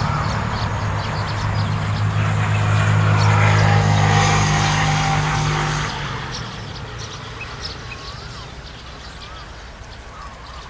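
A passing motor vehicle's engine, growing louder to a peak about four seconds in, then fading away shortly after.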